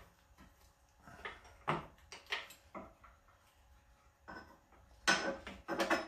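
A scatter of short metal clinks and knocks from a wrench being fitted to the oil drain bolt of a Champion generator's engine, the loudest a brief rattle about five seconds in.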